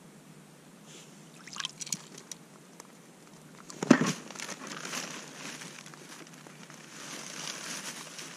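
Ice-fishing handling noise: a few light clicks, then a loud thump about four seconds in as the angler sits down on a plastic bucket, followed by a stretch of crunching, sloshing noise from movement in the slush at the ice hole.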